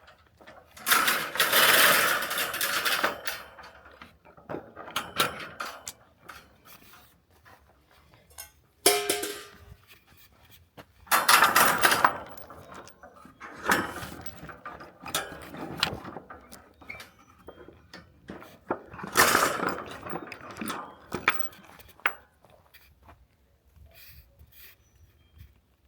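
Metal milk pail being handled, clanking and rattling in repeated bursts, with one short ringing tone about nine seconds in.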